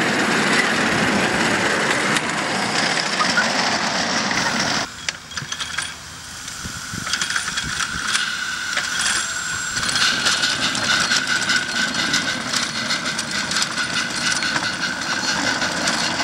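Maxitrak Alice, a live-steam Quarry Hunslet miniature locomotive, running along the track with riders aboard: steam hissing and wheels clicking over the rails. A steady high whine sets in about seven seconds in.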